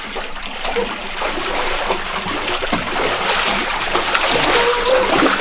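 Water splashing and trickling steadily.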